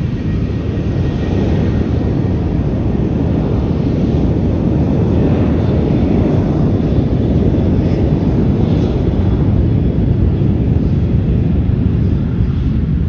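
Boeing 737-700's CFM56 turbofan engines at takeoff thrust, a loud, steady deep rumble during the takeoff run.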